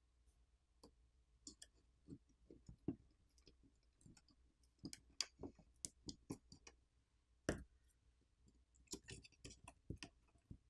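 Faint, scattered clicks and taps of a metal spudger and fingers against an iPhone 15 Pro's bare aluminium-and-steel frame as the USB-C charging port flex cable is pried loose, with the loudest tap about seven and a half seconds in.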